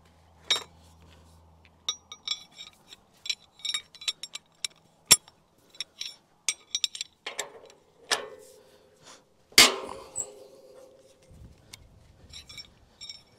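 Steel tools and fittings clinking and knocking against the steel tine mechanism: a run of sharp, ringing metallic clinks, with two louder knocks about five and nine and a half seconds in.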